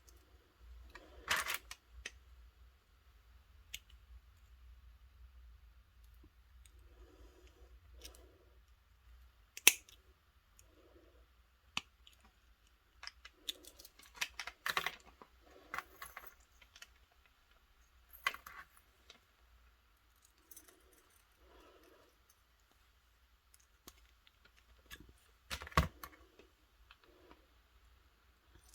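Scattered small clicks and metallic clinks of pliers and metal keyring parts being handled as rings are opened and squeezed shut, with a handful of sharper clicks among quieter ticks.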